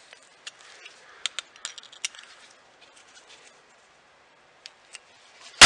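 Light clicks and taps of small metal parts as a Tecumseh carburetor's float bowl is handled and tightened, scattered through the first couple of seconds, with two more clicks later and one sharp, loud clack near the end.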